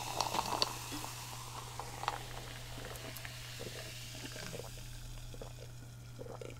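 Coca-Cola pouring into a glass for the first moment, then the faint fizz of the carbonated drink, over a steady low hum.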